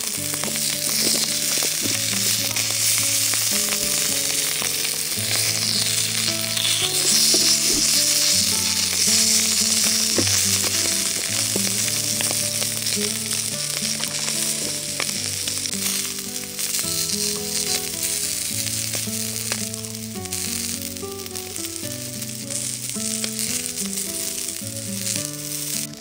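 Shishamo sizzling and spitting in their own fat on a hot griddle plate over a camping gas burner, steady throughout. A slow, soft melodic music track plays underneath.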